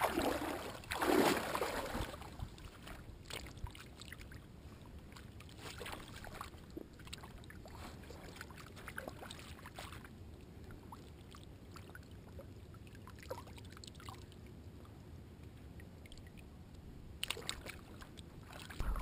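Splashing of feet wading through shallow lake water in the first two seconds, then faint small splashes and lapping water around a carp held in the shallows, with a short burst of splashing near the end.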